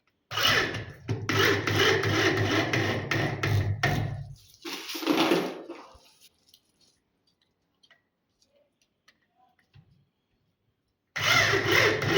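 Power drill-driver driving screws into a door hinge: a long run of about four seconds, a short burst just after, then a pause with small clicks before it runs again near the end.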